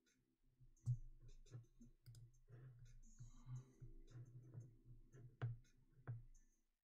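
Near silence: room tone with a low hum and a few faint clicks, the loudest about a second in and two more near the end.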